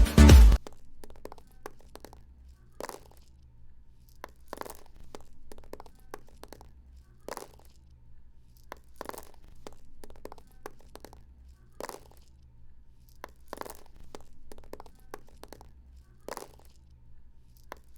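Small stones dropping and knocking against each other: irregular sharp clicks and short clatters, a few every second or two, some in quick clusters.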